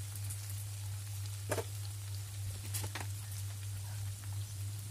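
Diced potatoes and onions sizzling in hot oil in a pan, a steady hiss over a low hum, with a few light knocks about a second and a half in and around three seconds in.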